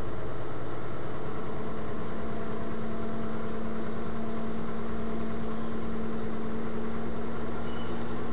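Vehicle engine running as it rolls along at low speed, heard from inside the cab through a dash camera's microphone. A steady hum comes in about a second in.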